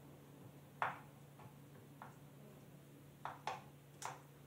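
About six faint, irregular metallic clicks from setting the tension of a Husqvarna 135 Mark II's saw chain: the chain being lifted and let back onto the guide bar while the tensioning screw is turned with the combination wrench.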